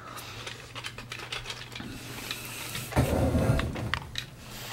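Scattered light clicks and rattles of hard plastic toy parts being handled, with a duller thump about three seconds in.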